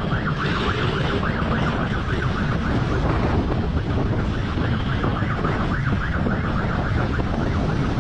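Police motorcycle siren sounding a fast yelp, about five rising sweeps a second, over heavy wind noise on the microphone and the low rumble of the bike at speed.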